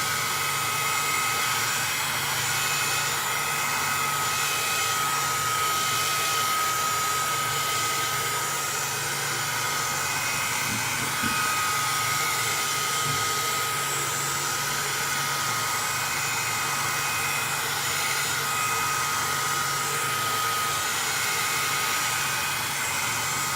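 Electric heat gun blowing steadily while heating a PlayStation 3 motherboard: an even rush of air with a thin high whine that drops out now and then.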